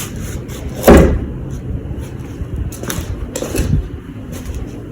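Wooden pieces being handled and knocked into place: a solid thud about a second in, then a few softer knocks and clatter.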